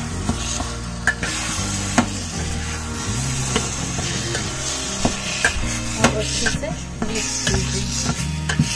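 A slotted spatula stirring and mashing eggplant bharta in a stainless steel kadhai, the food sizzling lightly, with several sharp clicks where the spatula knocks against the pan.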